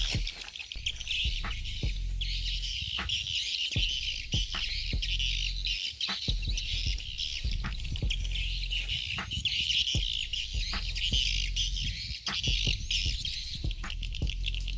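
Birds chirping and calling over a steady high-pitched outdoor chorus, with many sharp clicks scattered through it.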